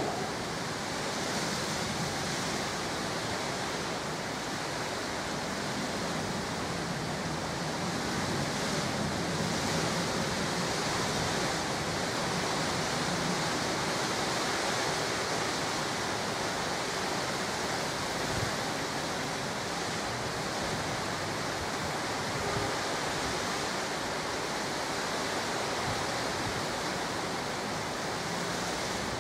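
Steady, even hiss of rain and wind on the microphone.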